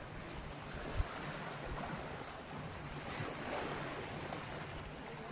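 Sea waves washing against shoreline rocks, with wind on the microphone and a brief low knock about a second in.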